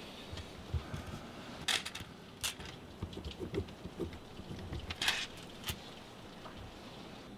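A pen writing on a sheet of paper lying on a hard countertop: a few short scratching strokes mixed with light taps and knocks.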